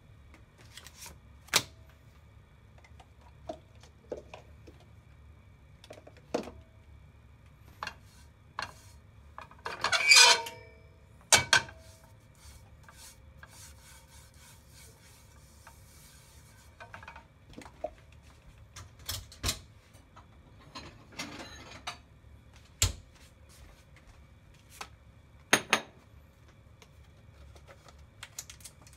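A nonstick frying pan and utensils being handled: scattered clicks and knocks, a louder clatter about ten seconds in, and soft rubbing as a brush spreads oil over the pan's surface.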